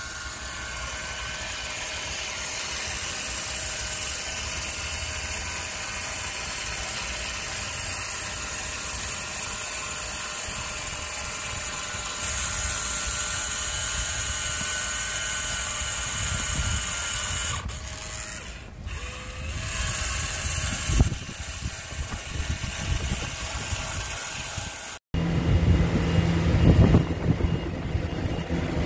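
A small power tool motor running steadily with a high whine and hiss. A few seconds before the end it gives way to lower, rougher machine running with a steady hum.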